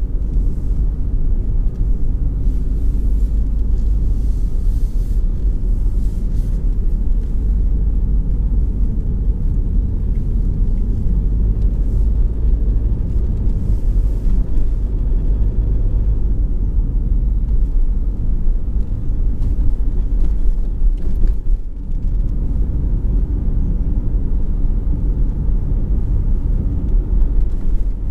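Steady low rumble of a car driving at road speed, heard from inside the cabin.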